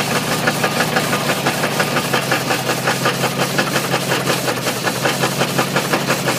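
Ford 351 Windsor small-block V8 running with a steady, rapid knock from a spun bearing.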